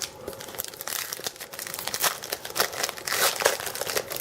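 Foil wrapper of a trading card pack crinkling and being torn open. It makes a dense run of crackles that gets louder in the second half.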